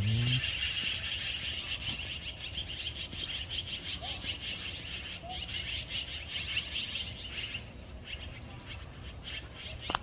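A large flock of magpies chattering, many short harsh calls overlapping in a dense stream that thins out after about seven and a half seconds. A short low sound comes at the very start and a click at the very end.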